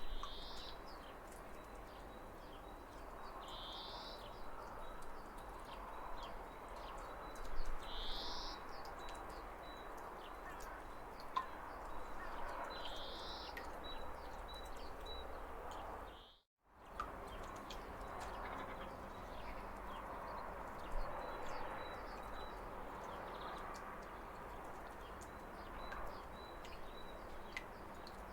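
Small waterfall splashing steadily, with a bird repeating a short rising call every few seconds in the first half and faint high twittering. The sound cuts out completely for a moment about sixteen seconds in.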